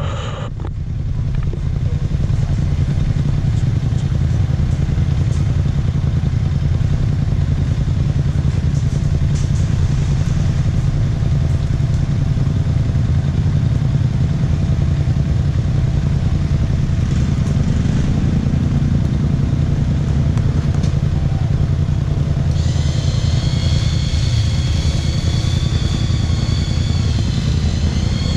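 Quad bike (ATV) engines running steadily. From about two-thirds of the way in, a high, slightly wavering whine joins them.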